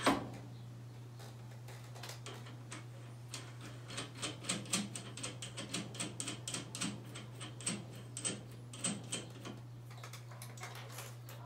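Light, irregular clicks and ticks of small hard parts being handled, a few a second with some louder than others, over a steady low hum.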